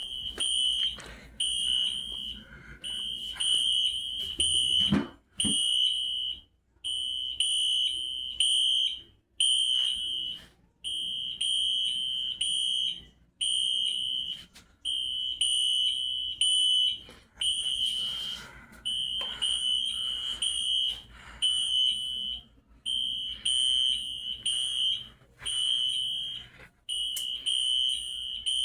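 Several fire alarms sounding together: a loud, high-pitched electronic tone pulsing on and off in bursts of about a second with short gaps.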